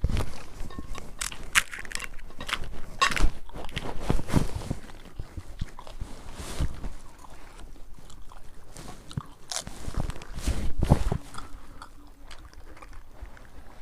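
Panipuri being bitten and chewed: crisp, hollow fried puri shells cracking in irregular crunches, with chewing in between, louder bursts about three seconds in and again near ten seconds.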